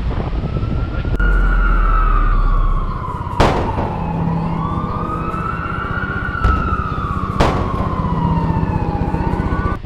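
A siren wailing, its pitch rising and falling slowly, heard over wind on the microphone. Two sharp knocks come partway through.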